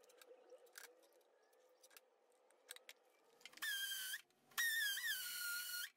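Cordless drill drilling into a wall: a few faint clicks, then a high motor whine in two runs a little over half a second apart, the second longer, its pitch sagging slightly as the bit loads.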